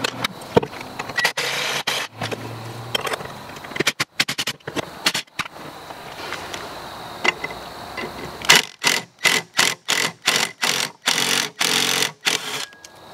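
Forney Easyweld wire-feed welder arc crackling as a nut is welded on. It runs in short stitches, and near the end it breaks into a rapid string of brief bursts, about three a second.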